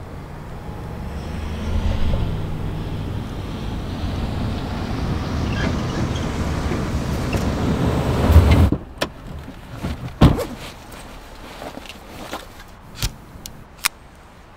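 Truck engine running as the vehicle drives up through brush, growing louder for about eight seconds and then cutting off abruptly. After it comes a heavy thump and a few sharp clicks.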